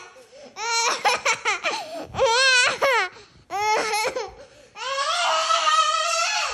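A young child squealing and wailing in four high-pitched bouts: quick broken pulses, then wavering cries, ending in one long held wail.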